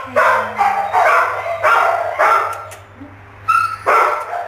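A dog barking, about eight sharp barks at roughly two a second, with a short pause about three seconds in.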